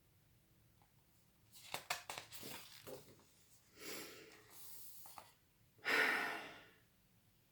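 Pages of a picture book being handled and turned: a few soft clicks, then paper rustling and sliding, loudest about six seconds in.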